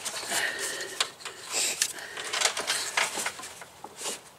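A gloved hand working a plastic coolant elbow and rubber hoses into place: irregular small clicks, taps and rustling.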